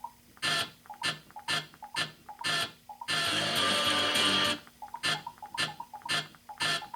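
Guitar music from TV audio, chopped into short fragments about two a second, with one longer unbroken stretch of strummed guitar near the middle.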